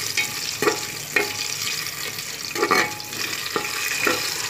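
Cashews, green chillies and whole spices sizzling in hot oil in a pressure cooker as they are stirred, with about five short knocks and scrapes against the pot.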